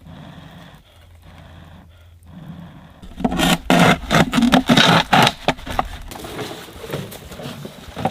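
Irregular scraping and rustling of hands working with trap materials. It is loudest in a run of rough strokes from about three seconds in to about five and a half seconds, then lighter.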